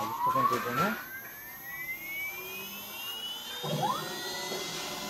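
CNC router spindle spinning up, its whine rising steadily in pitch for about four and a half seconds and then holding at speed. The stepper motors give short rising-and-falling whines as the axes move, once near the start and again near the end.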